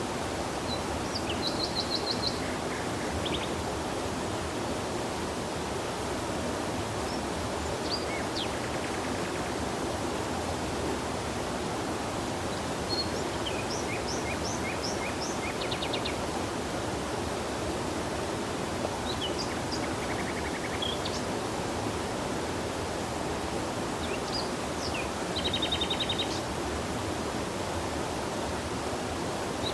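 Steady rush of flowing stream water, with songbirds calling now and then in short, high trills and chirps, four or five times.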